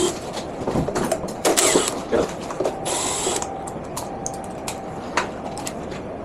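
Hand-tool work on an electric unicycle's casing: scattered clicks and clatter, with two short rasping bursts about a second and a half and three seconds in.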